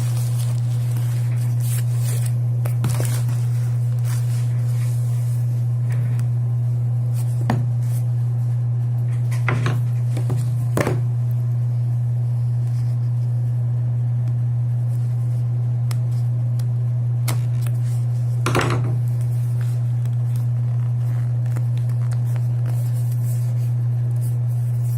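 A steady low hum with a few scattered clicks and scrapes of small items and packaging being handled.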